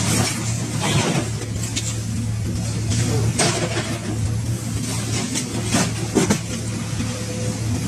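Hydraulic excavator engine running steadily, with a string of sharp metallic clanks and crunches as its demolition shear grips and tears a scrap car body.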